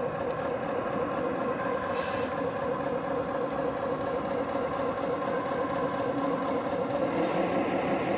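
Radio-controlled model excavator's motors running with a steady whine as the boom swings and the bucket lowers, with two short hisses, one about two seconds in and one near the end.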